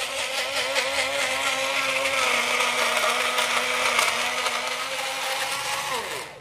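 Electric kitchen blender running at full speed, puréeing chopped bilimbi fruit with fennel seeds, palm sugar and warm water. Its steady motor whine drops slightly in pitch about two seconds in. Near the end it winds down with a falling pitch and stops.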